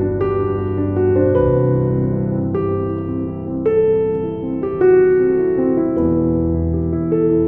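Piano music: a melody of struck notes over held low bass notes that change every few seconds.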